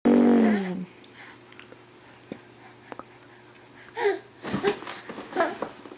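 Five-month-old baby vocalizing: a loud drawn-out sound that falls a little in pitch at the start, then a few small clicks, and a run of short babbling noises near the end.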